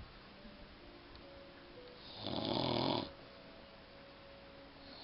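A sleeping person snoring, one loud snore lasting just under a second about two seconds in.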